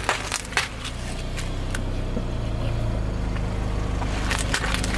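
Car tyre rolling over a bag of M&M's on asphalt, the candy shells cracking in several sharp crunches within the first two seconds, with a few more cracks about four and a half seconds in. Under it the car's engine runs with a steady low hum.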